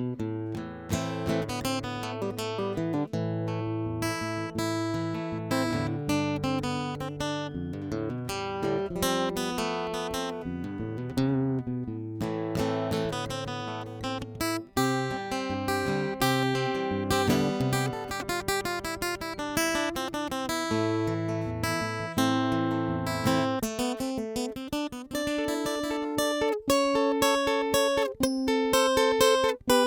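JCraft Troubadour Taka Mini, a GS Mini-size all-mahogany travel acoustic guitar, being played: a run of picked notes and chords over bass notes. About three quarters of the way in the bass notes stop and the playing carries on higher up the neck, a little louder.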